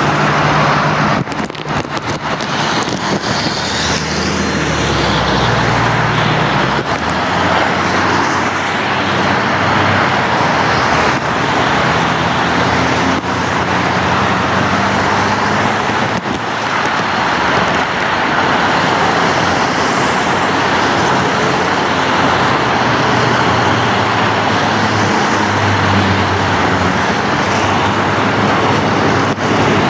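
Steady road traffic noise: vehicles passing, with a low engine hum that rises and falls.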